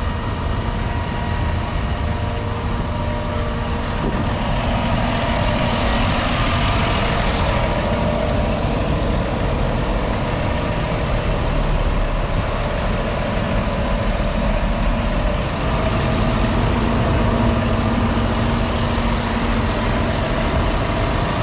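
Fendt 828 Vario's 6.1-litre six-cylinder diesel idling steadily with a deep rumble. A wider hiss briefly joins it around four to seven seconds in.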